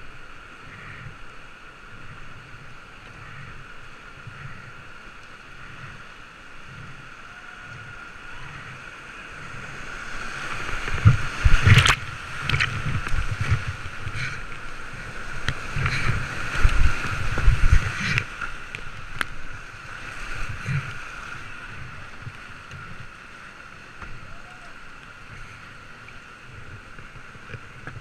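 Rushing whitewater heard from a GoPro on a kayak running a creek rapid. The water gets louder about ten seconds in as the boat drops through the foaming section, with heavy low thumps of water and paddle striking the hull and camera, then settles back to a steady rush.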